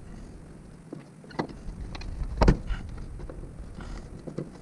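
A few scattered light clicks and knocks, the loudest about two and a half seconds in, from the hand work of unscrewing and taking down a car's sun visor.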